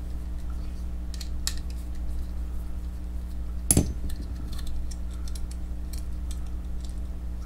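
Light clicks and ticks of a screwdriver working small T8 Torx screws and of a plastic knife sheath being taken apart by hand, with one sharper click a little before halfway.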